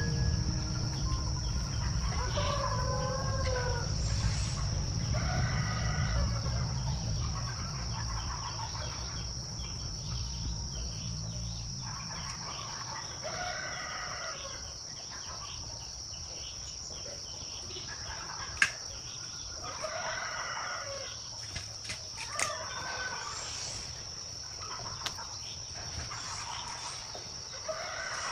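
Chickens calling every few seconds, including rooster crows, over a steady high-pitched insect drone. A low rumble is there through the first half and fades out, and a few sharp clicks come near the end.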